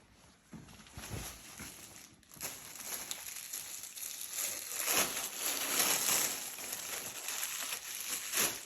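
Packaging crinkling and rustling as clothes are rummaged through and pulled out, getting louder and busier about two and a half seconds in.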